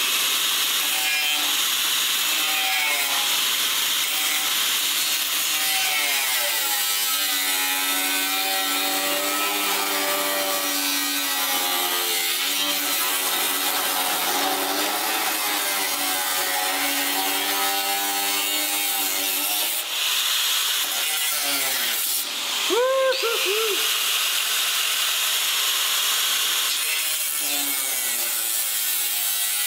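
Handheld angle grinder cutting through the sheet-steel lip of a car body panel. The motor's pitch wavers as the wheel bites and eases, with a brief surge about two-thirds of the way through.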